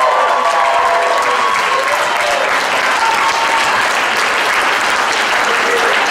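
Audience applauding, with high whoops and cheers over the clapping for the first two seconds or so, then steady clapping.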